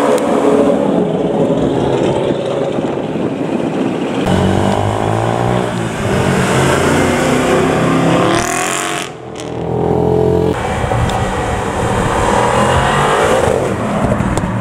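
Performance cars, among them an Audi S5, a Mercedes-AMG C63 and an Audi RS6, driving past one after another, engines revving as they pull away. The engine sound changes abruptly a few times as one pass gives way to the next, with a short rising sweep and a brief dip about two-thirds of the way through.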